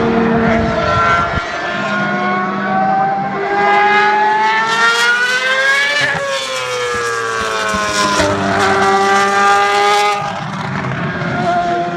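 A Formula One car's engine running at high revs as the car passes at speed. Its pitch climbs as it approaches, then drops sharply as it goes by about halfway through, and it stays loud as it pulls away.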